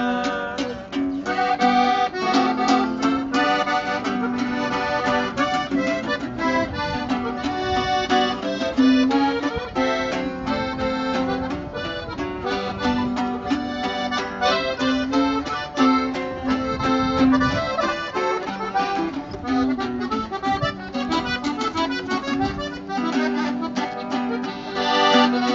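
Instrumental passage of norteño-style music: an accordion plays the melody over strummed bajo sexto and a steady rhythmic beat.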